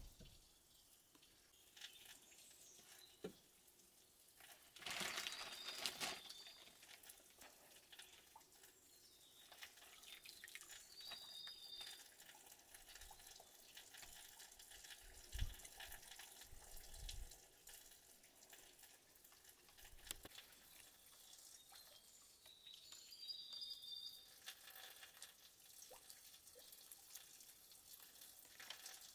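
Faint water sounds, quiet splashing and dripping, with a louder rush about five seconds in and two short high chirps, one near the middle and one later.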